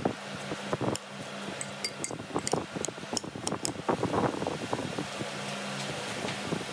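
Metal spoon tossing shredded cabbage coleslaw in a creamy dressing in a glass bowl: wet squelching and crunching of the cabbage, with sharp clinks of the spoon against the glass over the first few seconds. A steady low hum runs underneath.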